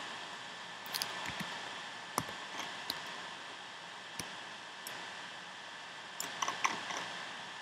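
Scattered clicks of a computer mouse and keyboard over a steady microphone hiss, with a quick cluster of several clicks near the end.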